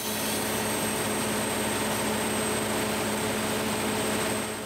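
Large mobile shaker truck's engine and hydraulic machinery running: a steady machine noise with a constant hum and a faint high whine, beginning to fade near the end.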